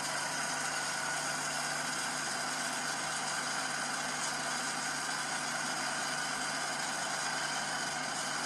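An engine running steadily at idle, an even hum with a constant pitch.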